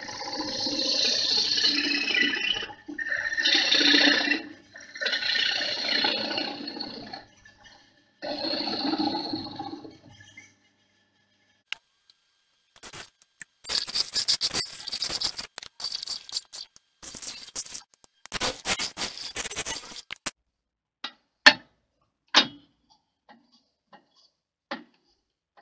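Wood lathe turning a wooden blank, a gouge cutting it in four scraping passes over a low motor hum for about the first ten seconds. After a short pause comes a longer stretch of harsher, hissing scraping against the spinning wood, then a few sharp knocks near the end as the piece is handled.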